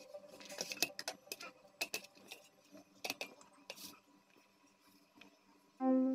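Soft, irregular taps and clicks of bread dough pieces being set down and handled on a stainless steel tray, dying away about two-thirds of the way through. Plucked-string background music comes in near the end.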